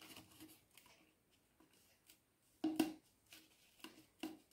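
Paint sponge dabbing through a paper stencil onto a painted curd pot: a few faint soft taps, with one louder brief dab a little past halfway.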